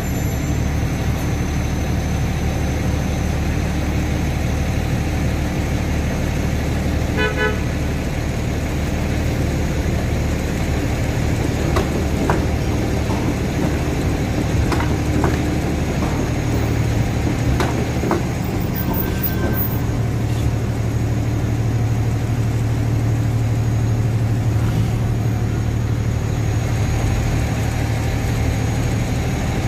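Busy city street traffic with a TTC Bombardier Flexity streetcar passing close by, with several sharp clicks as it goes over the tracks. A short vehicle horn toot about seven seconds in, and a steady low engine hum from idling vehicles over the second half.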